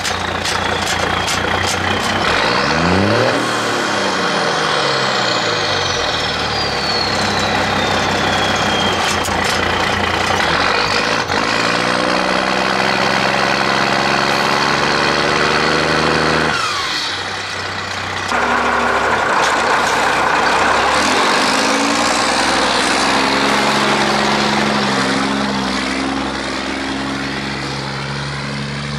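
P-pump Cummins 6CTA 8.3 diesel with a 4-inch straight pipe and an HX40 turbo, heard at the exhaust stack while working under load. The exhaust note rises and falls with engine speed over a high turbo whistle that glides down and back up. About two-thirds of the way through, the sound dips for a moment, then picks up again.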